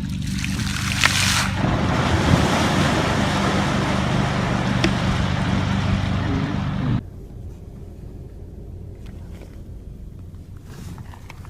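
Loud wind and water noise on the microphone over a steady engine drone, as from a boat on open water. It cuts off abruptly about seven seconds in, leaving only faint, quieter background sounds.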